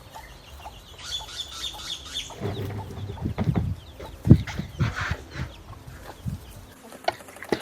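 Chickens clucking, with a run of dull thumps and rustling as the chopped banana stem and maize germ mixture is put into a container; the loudest thump comes a little past the middle.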